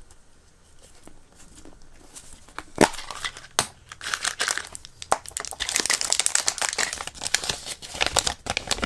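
A plastic gashapon capsule is pried open with a sharp click about three seconds in. Then the folded paper leaflet and the toy's plastic wrapping crinkle as they are pulled out and unfolded.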